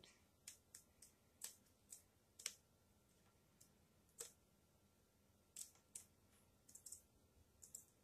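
Scissors snipping through a sheet of plastic canvas: faint, short, sharp snips at irregular intervals, about a dozen, some in quick pairs.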